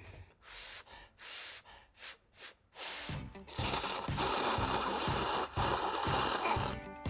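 A person slurping instant udon noodles: a few short sucks of air, then one long, continuous slurp about three seconds long.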